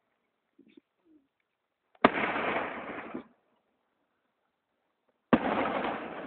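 Two aerial firework shells bursting about three seconds apart, each a sharp bang that trails off over about a second, through a phone's microphone.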